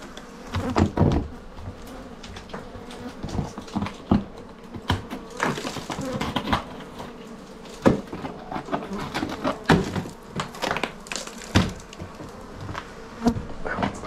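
Bone-dry honeycomb, empty of honey and brood, crunching and crackling in irregular bursts as it is cut out with a knife, over a steady buzzing of honeybees.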